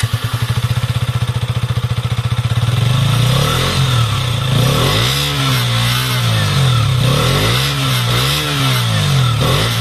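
KTM Duke 125's single-cylinder, liquid-cooled 125 cc engine heard at its stock underbelly exhaust: it idles with a steady, even putter for the first few seconds, then is revved in a series of short throttle blips, about one a second.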